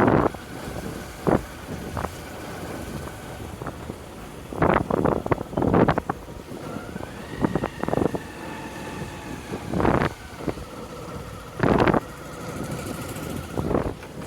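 Motorcycle riding along, with wind buffeting the microphone in loud gusts every second or two.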